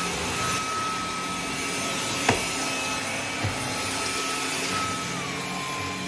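A stick vacuum cleaner running steadily with a high motor whine, with one sharp click about two seconds in; near the end the whine drops slightly in pitch.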